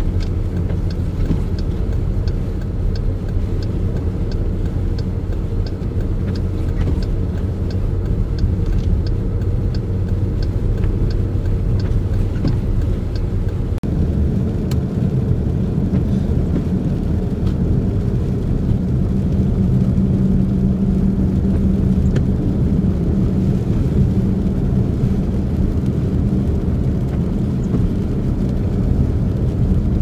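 Steady vehicle drive noise, engine and road drone, while driving on a snowy highway. A light regular ticking, about three ticks every two seconds, runs through the first dozen seconds. The drone shifts in tone about halfway through.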